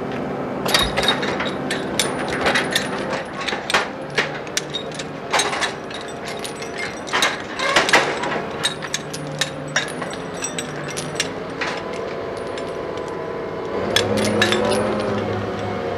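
Steel lifting chains clanking and rattling irregularly against the crane hook and each other as they are handled, over the steady hum of the mobile crane's diesel engine. Near the end the engine note changes and gets louder.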